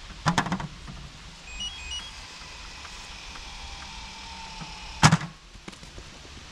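Automatic dog ball launcher: a sharp thump, a short run of electronic beeps, a steady motor whir for about three seconds, then a second sharp thump as it fires the ball.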